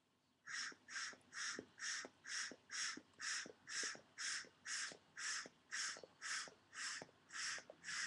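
Rapid, even puffs drawing air through a tobacco pipe as a match flame is pulled down into the bowl to light it, about two puffs a second, starting about half a second in.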